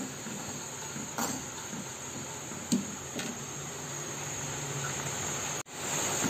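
Soup bubbling at a boil in an aluminium wok, with a metal spoon clicking against the pan a few times. The sound cuts out for an instant near the end and returns slightly louder.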